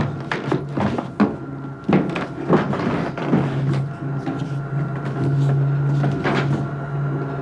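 A door being opened and handled, with a run of sharp knocks and clatters in the first few seconds, over a steady low hum.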